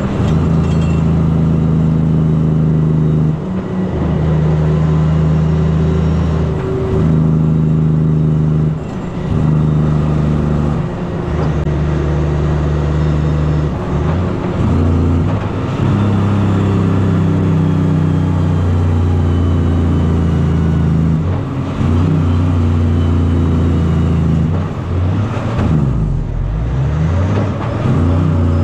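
Kenworth C509 truck's diesel engine running hard under a heavy load, its note breaking off and picking up at a new pitch every few seconds as the driver works through the gears.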